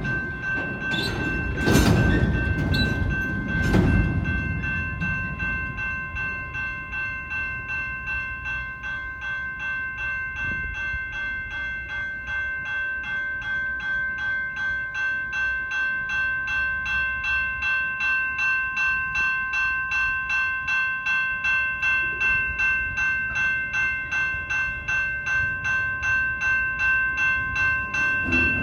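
Train passing, with a few loud clanks in the first four seconds, over a steady high ringing that pulses two to three times a second and grows slowly louder.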